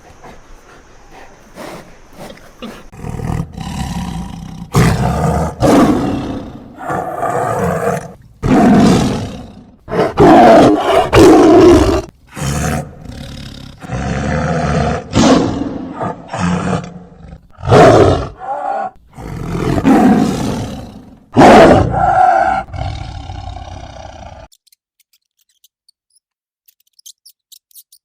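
A lion roaring in a long series of separate roars over about twenty seconds, cutting off abruptly near the end.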